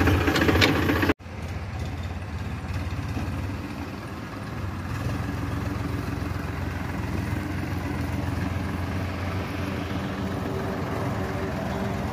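Powertrac tractor's diesel engine running loud and close for about a second, then, after a sudden cut, running steadily at a distance as it works the field.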